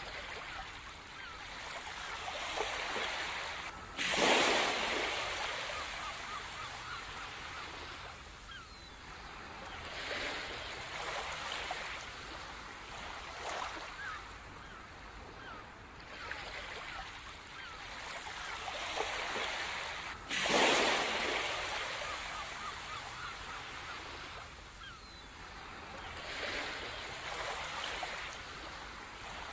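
Ocean surf washing onto a beach, the waves rising and falling in slow surges every few seconds, with two bigger breakers about four seconds in and again about twenty seconds in.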